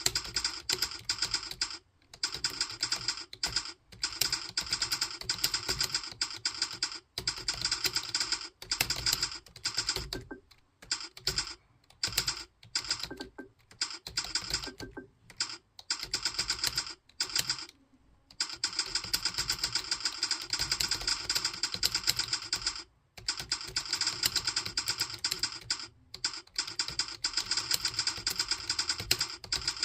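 Fast typing on a computer keyboard: rapid, continuous key clicks with brief pauses between bursts.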